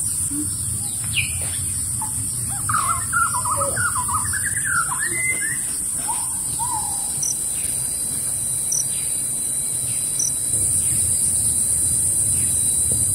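A forest bird calling: a quick run of rising and falling chirps lasting a few seconds in the middle, over a steady high-pitched hiss and a low rumble.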